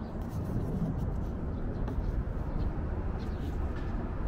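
Steady low outdoor rumble with a few faint clicks.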